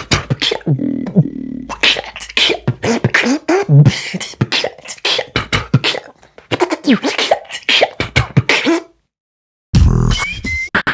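Beatboxer performing a fast beatbox pattern featuring the hiccup snare: an inward K snare followed by a hollow clop with a hiccup-like vocal catch, mixed with other clicks and pitched vocal sounds. The routine breaks off about nine seconds in, and after a short gap another loud sound starts near the end.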